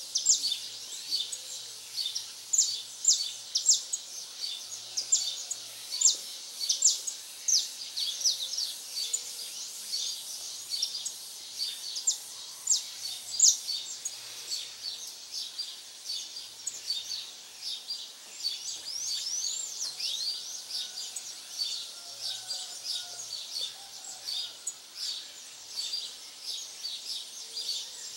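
Dawn chorus of many small birds chirping and twittering rapidly and high-pitched, with a few short whistled notes gliding up and down.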